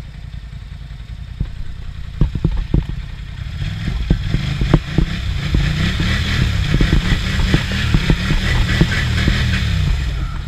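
ATV engine revving hard in deep mud, building from a few seconds in and held high with wavering pitch before dropping off near the end, with sharp knocks throughout. The ATV has a broken axle.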